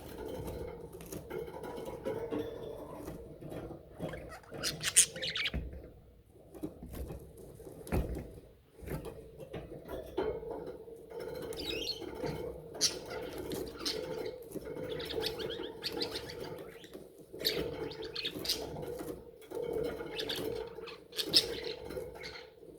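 Pet budgerigars chattering and warbling, in repeated bursts of high chirps over a steady low hum, with a couple of soft knocks.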